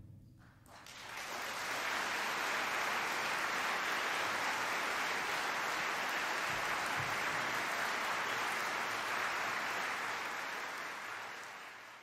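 Concert audience applauding as the march's final chord dies away. The applause rises about a second in, holds steady, and fades out near the end.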